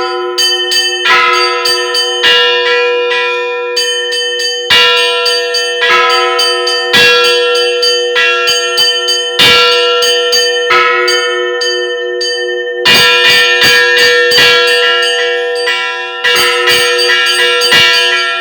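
Church bells rung together for Easter. Smaller bells are struck in quick, irregular clusters, and a heavier bell sounds about every two and a half seconds. Their tones ring on between the strikes.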